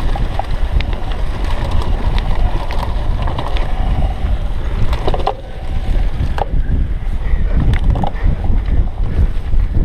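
Wind rushing over a GoPro Hero 3's microphone as a cyclocross bike is ridden fast along a dirt trail, with scattered clicks and rattles from the bike jolting over the rough ground.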